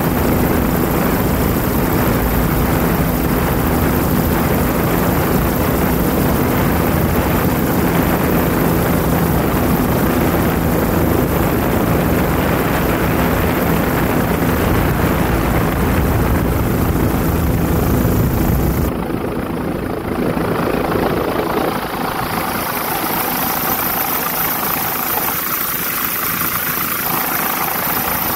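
Steady aircraft engine noise with a low hum. About nineteen seconds in, the deep rumble drops away and the noise carries on thinner.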